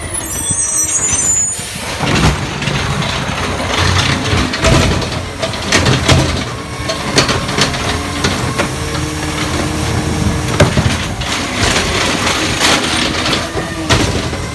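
Garbage truck at work: the engine runs under a steady whine while repeated bangs and clanks ring out.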